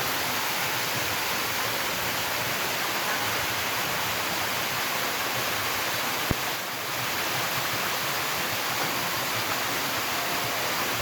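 Waterfall rushing: a steady roar of falling water, with one brief click about six seconds in.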